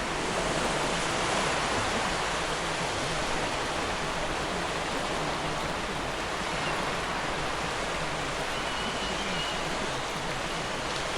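Steady, even rushing of water with no clear rise and fall of separate waves.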